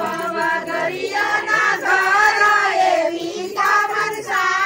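Voices singing together, a devotional song with held, wavering notes.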